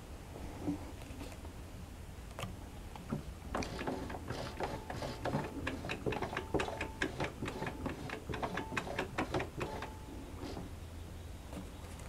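Jaguar portable sewing machine's exposed internal mechanism running. A rapid run of clicks and ticks from its moving parts starts about three and a half seconds in and lasts about six seconds.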